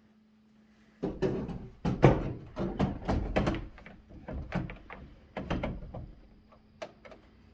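Flat-screen TV being lifted and hung on a tilting wall mount: a run of knocks and clunks as the brackets on its back catch on the wall plate, starting about a second in, loudest near two seconds and thinning out by about seven seconds.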